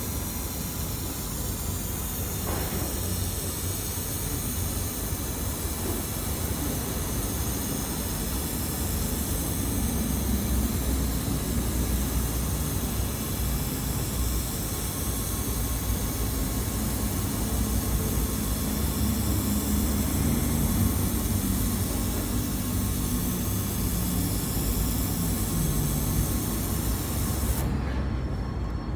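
Handheld laser welder working along an exhaust pipe: a steady hiss of the gas and weld that cuts off suddenly near the end, over a low rumble.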